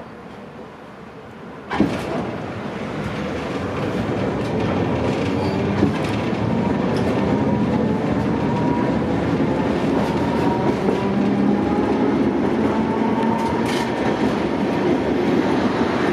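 Streetcar pulling away from a stop, heard from inside the car. A sudden clunk comes about two seconds in. Then the wheels run on the rails with a clickety-clack, and a whine rises slowly in pitch as the tram picks up speed.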